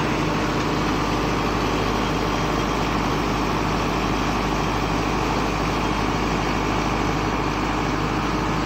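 Tractor engine running steadily, driving a PTO-powered post hole digger as its auger bores down into the soil.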